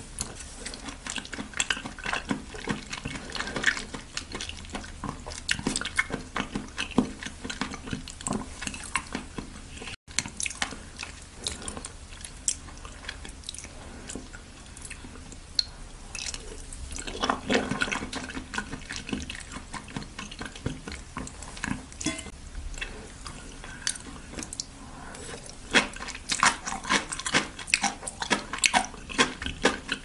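Close-miked wet chewing of raw oysters and sea grapes: many small irregular clicks, squishes and wet mouth sounds, with a brief gap about ten seconds in.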